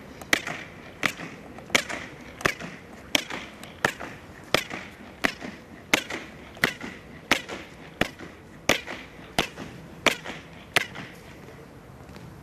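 Ceremonial honour guard's boots striking stone paving in a slow march: sharp, evenly spaced heel strikes in unison, about one every 0.7 seconds, each with a short echo. The steps stop shortly before the end.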